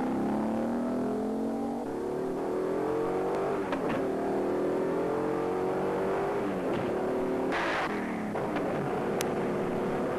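1966 Plymouth Satellite's 426 Hemi V8 accelerating hard down a drag strip, running up through a four-speed manual. The pitch climbs and drops back at each upshift, about three times, with a brief rush of noise about three-quarters of the way through.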